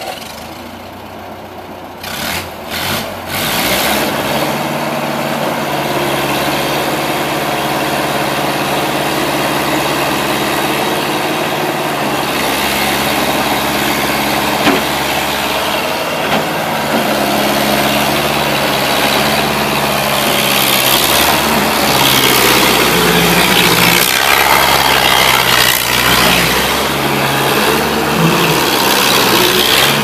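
Bobcat M610 skid steer's engine, just started and running, revving in a few short surges about two to three seconds in, then running steadily and a little louder as the machine drives around.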